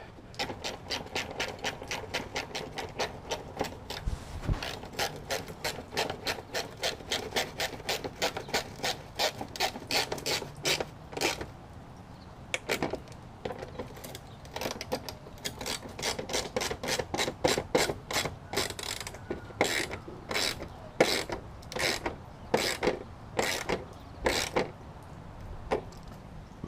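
Hand ratchet clicking in quick, even strokes, about four a second, then in short bursts with pauses in the second half, as screws are driven in to refit a car's front bumper.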